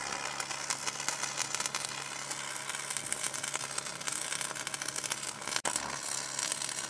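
Dense electric crackling and sizzling, like continuous sparking, over a faint steady low hum; it cuts out for an instant about five and a half seconds in.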